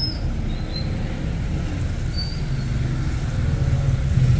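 Low, steady rumble of a car's engine and tyres on a wet street, heard from inside the moving car; a deeper engine hum grows stronger near the end.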